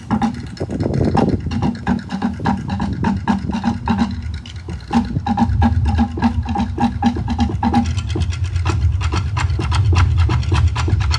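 Percussion ensemble playing a fast groove on cajón, drum kit and hand percussion: dense, rapid strikes over a repeating pitched figure, with a heavier low end coming in about five seconds in.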